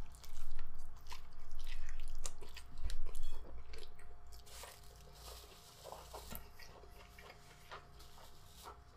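Biting and chewing a beef burrito close to the microphone: wet, clicking mouth sounds, loudest over the first four seconds, then quieter chewing.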